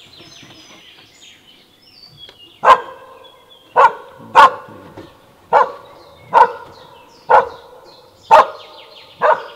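A hunting hound barking at a wild boar: eight short, loud barks, roughly one a second, starting almost three seconds in. It is the dog giving voice on the boar it has found. Faint bird chirps come before the barking.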